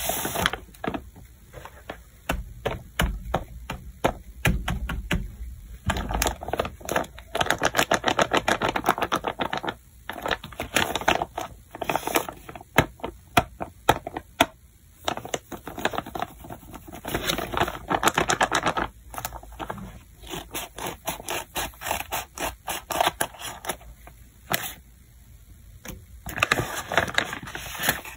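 Hand-made paper blind bags being handled: the paper crinkles and rustles, with many quick taps and clicks of fingers on the paper.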